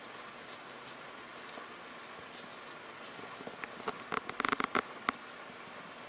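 Soft taps and rustles of an ink brush and paper being worked on a felt-covered table: a few faint ticks, then a quick cluster of light taps a little past halfway. Steady hiss underneath.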